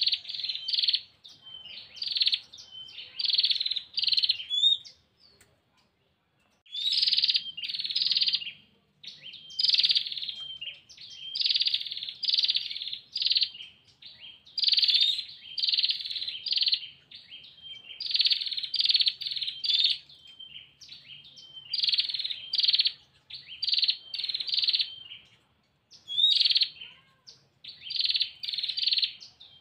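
Female prinia (prenjak) giving its rapid rattling trill calls, the 'ngetir' call a female uses to call a male. The short trilled bursts come in quick groups over and over, with one pause of about two seconds around six seconds in.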